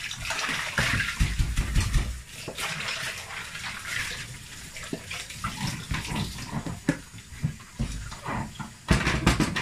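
Kitchen tap running into a stainless steel sink while a plastic bowl is rinsed and rubbed by hand, with knocks and clatters of dishes against the sink, loudest about a second in and again in a cluster near the end.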